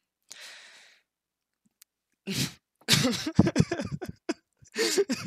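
A man's breath, then after a pause a run of coughs in quick succession, loudest about three to four seconds in, with more coughing near the end.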